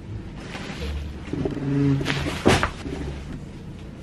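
A man's short, steady-pitched groan, then about two and a half seconds in a sudden loud crackle of plastic wrap being handled close to the microphone, over a low rumble of handling noise.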